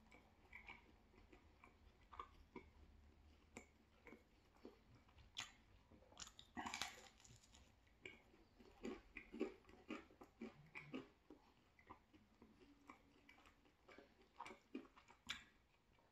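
A person biting and chewing thin-crust pizza close to the microphone: irregular crisp crunches of crust and wet mouth clicks, busiest around the middle.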